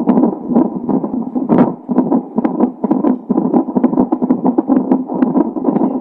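Unborn baby's heartbeat shortly before birth, heard through a fetal ultrasound Doppler monitor: a loud, rapid, pulsing whoosh.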